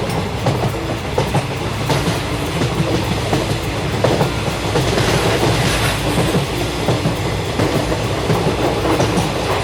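Train running along the track: a steady rumble with frequent irregular clicks of the wheels over the rails.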